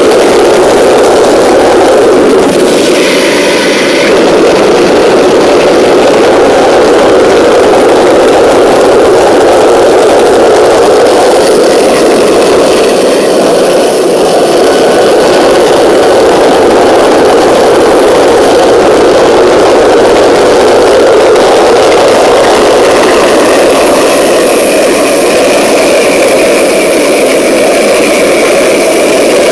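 Home-built gas turbine engine running loudly and steadily.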